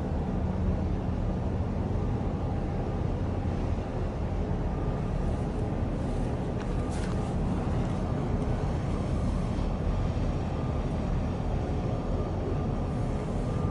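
Steady low engine rumble with a faint hum. A brief hiss passes about seven seconds in and again near the end.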